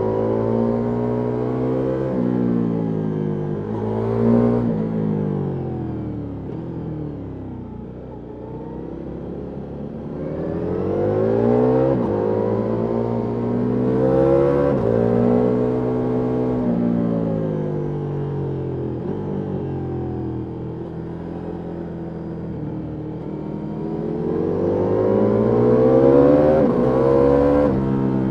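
Ducati Multistrada V4S's V4 engine through an Akrapovic exhaust under riding load. The pitch climbs and drops several times as the rider accelerates and rolls off between bends, with a sharp crack at the top of a rev about four seconds in and again near the end.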